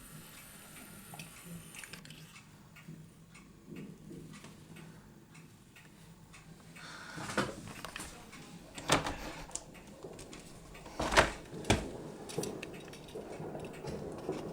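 Fireworks going off: scattered bangs, few at first and more frequent in the second half, the loudest two close together about three quarters of the way through.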